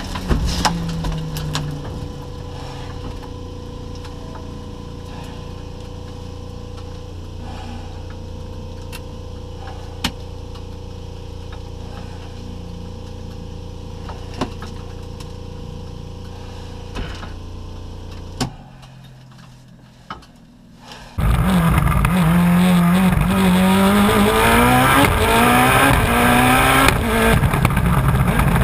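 A steady low hum in the cabin of the crashed rally car, with a few sharp clicks. Then, after a few quieter seconds, a race car engine comes in at full throttle, its pitch climbing and dropping at each gear change.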